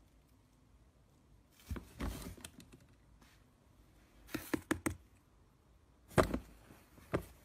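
Plastic swing lid of a small bin clattering as a cat pushes through it, in three short bursts of knocks.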